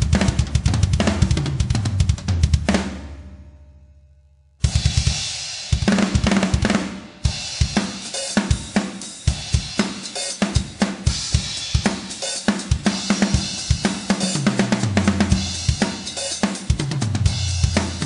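Drum kit played hard in a metal style: rapid bass drum, snare and cymbals. The playing stops about three seconds in and rings away, then kicks back in suddenly a second and a half later; near the end come fills stepping down the toms.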